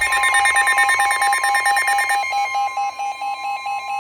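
NOAA Weather Radio's steady 1050 Hz warning alert tone, with weather radios' alarms beeping rapidly over it. One set of higher-pitched beeps stops about halfway through.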